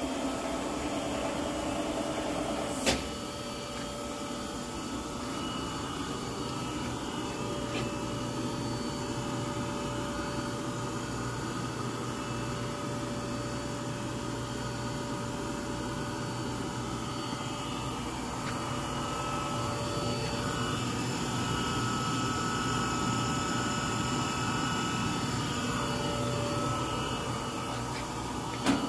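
Phillips gun drilling machine running with a steady motor and pump hum, from its drive motors and high-pressure coolant system. A sharp click sounds about three seconds in and another near the end.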